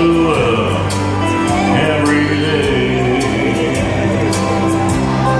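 Live country-western dance band playing through a PA, with singing over a steady drum beat.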